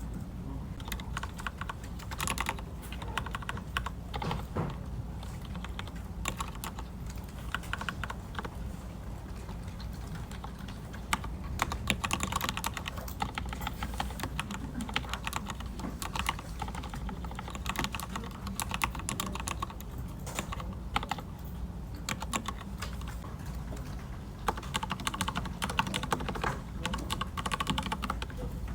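Typing on a computer keyboard: rapid key clicks in runs, with brief lulls, over a steady low room hum.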